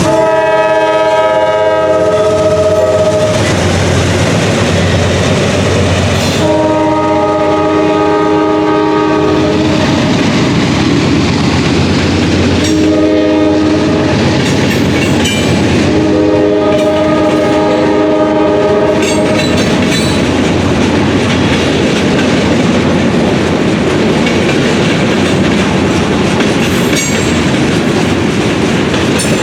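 Freight locomotive horn sounding the grade-crossing signal, long, long, short, long, several tones at once, over the rumble of the train. After the last long blast, the train keeps rolling past with its wheels clicking over the rail joints.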